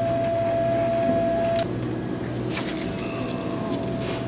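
Steady drone of a fishing party boat's machinery, with a thin steady whine over it that drops away about a second and a half in and comes back fainter. A few faint clicks near the end.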